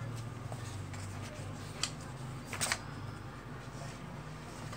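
Magazine pages being handled and turned, with two brief paper rustles about two and two and a half seconds in, over a steady low hum.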